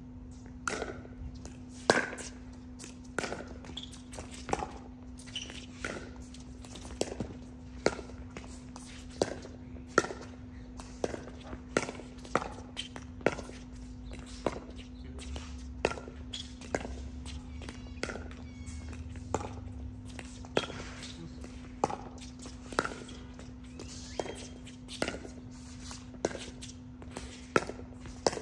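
Pickleball rally: paddles hitting the plastic ball in a long run of sharp pops, roughly one a second and uneven in strength, over a steady low hum.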